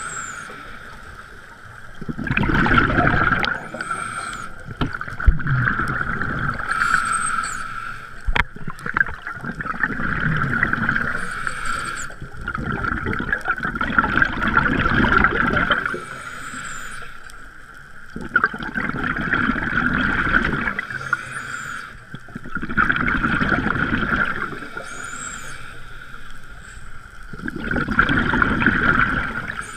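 Scuba diver breathing through a regulator underwater: a hiss on each inhale and a rumble of exhaust bubbles on each exhale, repeating every four to five seconds.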